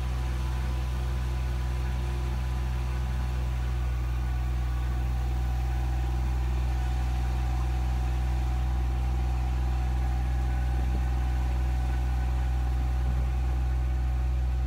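An engine running steadily at idle: a low, even hum that does not change.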